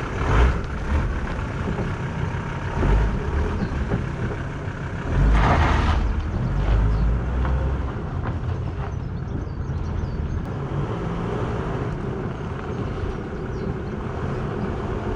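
Volkswagen LT van driving on a short test run with new front brake discs and pads on one side: steady engine and road noise, with two louder swells, one about half a second in and a longer one around five to six seconds in.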